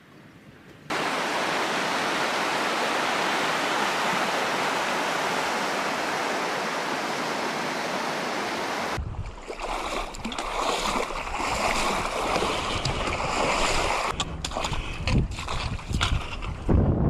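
Steady rush of flowing stream or river water that starts suddenly about a second in and cuts off abruptly about nine seconds in. After that, wind gusting against the microphone with an uneven low rumble and a few clicks.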